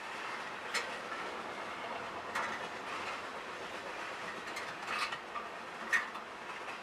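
CSX intermodal freight train cars rolling past a grade crossing, a steady rumble of wheels on rail with a few sharp, irregular clacks as wheels cross the rail joints, heard from inside a car.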